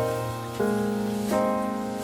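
Gentle background music, a new chord sounding about every two-thirds of a second.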